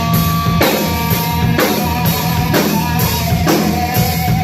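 Live rock band playing loud: a drum kit keeping a steady beat with a strong hit about once a second, under held guitar notes and bass.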